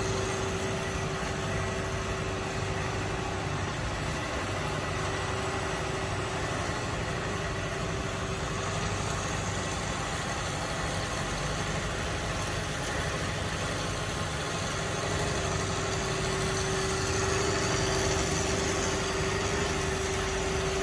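Pabal S-300HF industrial band saw running: a steady machine hum with a constant mid-pitched tone, a little louder in the last few seconds.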